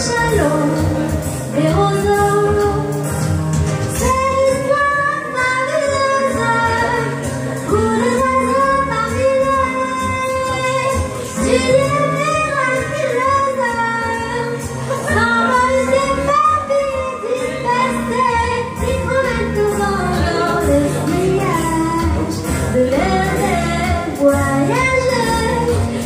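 A woman singing a melodic song over instrumental accompaniment, holding long notes.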